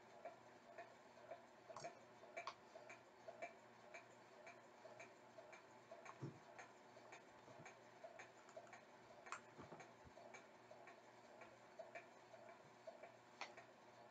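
Near silence with faint, even ticking about twice a second, and a few slightly louder clicks scattered through it.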